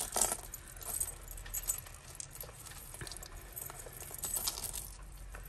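Loose metal jewellery (chains, necklaces and small metal pieces) clinking and jangling as it is handled and sorted. The sound comes as scattered small clicks, a little louder at the very start.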